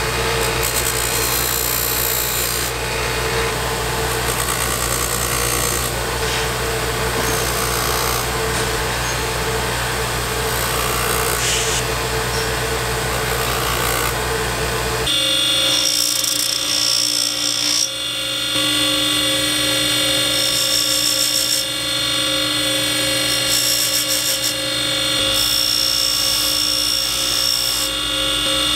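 Bench grinder running with a Scotch-Brite wheel as a small brass part held in pliers is pressed against it, a scratchy rubbing hiss over a steady motor hum, taking out the scratches left by a wire wheel. About halfway through the sound cuts abruptly to a buffing wheel polishing the part, a steadier motor whine with short spells of high hiss.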